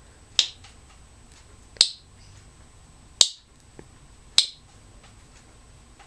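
Timneh African grey parrot making sharp clicks with its beak and tongue, four single clicks a little over a second apart.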